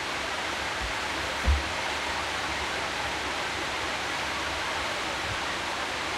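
Steady hiss of rain, even and unbroken, with a low thump about one and a half seconds in.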